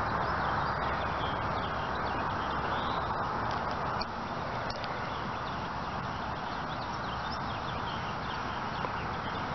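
Outdoor ambience: a steady rushing noise with faint bird chirps over it, easing slightly about four seconds in.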